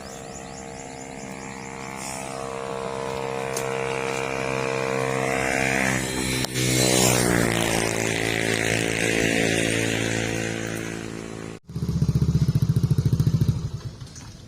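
Motorcycle engine running under way, its pitch climbing steadily as it speeds up, dipping briefly about halfway through and then climbing again. Near the end the sound cuts abruptly to a louder, rapidly pulsing engine sound lasting about two seconds.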